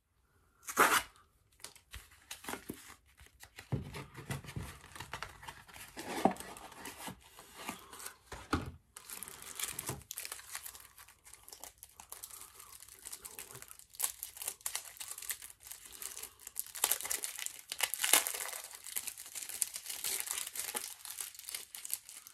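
A package being torn open by hand: packaging crinkling and tearing in irregular rustles, with one sharper crack about a second in.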